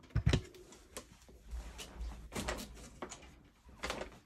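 Hard plastic die-cutting machines being handled and shifted on a desk: two sharp knocks about a quarter second in, then softer scraping, bumps and clicks as the larger machine is slid away.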